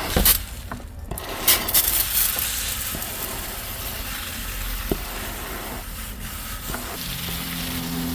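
Mold remover being sprayed: a steady hiss of spray, after a few knocks and clicks in the first two seconds.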